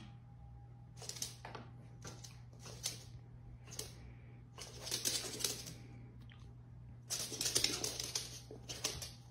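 Small dog's claws scratching and scrabbling in short bursts of rapid clicks, the longest about five seconds in and again around seven to eight seconds.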